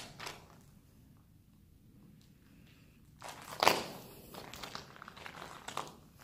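A quiet stretch, then footsteps crunching on gravel from about three seconds in, an irregular run of steps with one louder crunch soon after they start.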